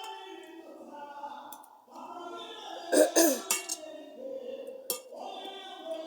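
Singing voices over background music, with a loud, short burst of noise about three seconds in and a sharp click near the five-second mark.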